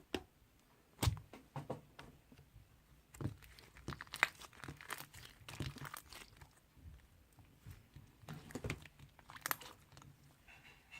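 Slime being handled and pressed by hand: irregular soft crunching, crackling and squishing clicks, with the loudest about a second in and about four seconds in.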